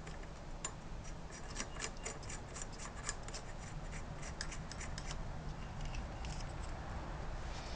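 Light, irregular metallic clicks and scraping as the variator nut is threaded by hand onto the GY6 scooter's crankshaft. The clicks are thick for the first five seconds or so, then thin out.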